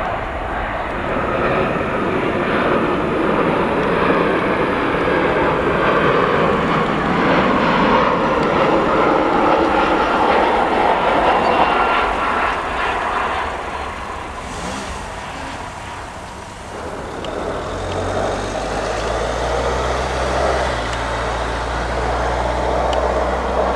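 Jet airliner engines on the runway during landings: a steady rushing roar that eases about fifteen seconds in, then builds again with a low hum underneath.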